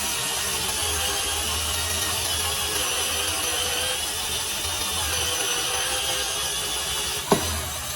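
Electric drill running steadily as it bores into wood, its motor whining under the cutting noise. One sharp knock near the end.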